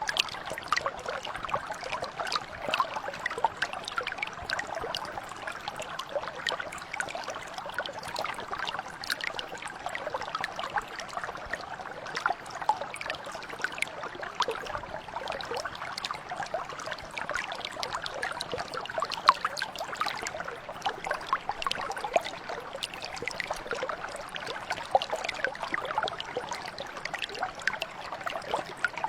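Mountain brook flowing steadily over stones, a continuous babbling and trickling with many small splashes.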